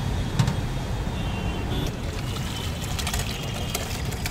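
Steady low rumble of road traffic, with a sharp click about half a second in and scattered light clinks later on.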